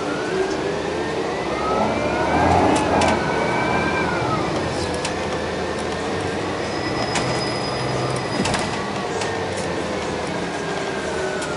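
Inside a New Flyer XD60 articulated diesel bus under way: the engine and drivetrain are running with a whine that rises over the first few seconds, holds steady, then falls near the end, over a constant road noise with scattered light rattling clicks.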